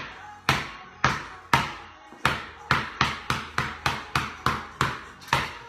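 Basketball dribbled on a bare concrete floor, each bounce a sharp smack that dies away quickly. The bounces come about two a second at first and quicken to three or four a second from about three seconds in.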